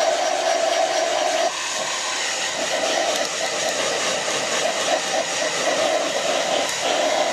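Handheld hair dryer blowing steadily. Its humming tone weakens about a second and a half in, flickers, and comes back strong near the end.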